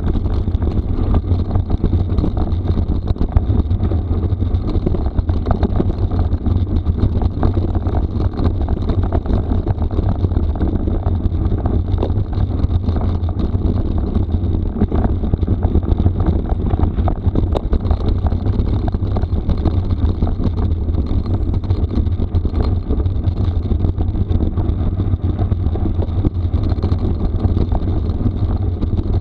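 Wind buffeting the microphone in a steady low rumble over the crunch and rattle of mountain bike tyres rolling on a rough gravel forest road, with many small clicks and knocks.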